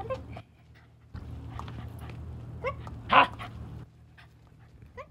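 A dog giving a few short, excited yips, the loudest a little past the middle.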